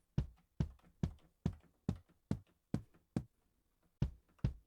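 A drum sample in the Drumslot software sampler, triggered note by note along a scale: short punchy hits with a low thump and a bright click, a little over two a second, with a brief pause near the end. Pitch mode is on, so each note plays the sample at a different pitch.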